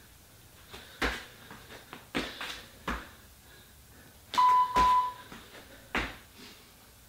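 Thuds of a person doing burpees, landing about once a second. Near the middle an interval timer beeps twice, marking the end of a 20-second work interval, and one more thud follows.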